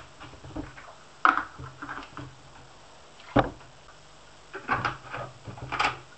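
Plastic hydroponic nutrient bottles being handled and set down on a kitchen worktop: a few sharp knocks and clatters, the heaviest about three and a half seconds in.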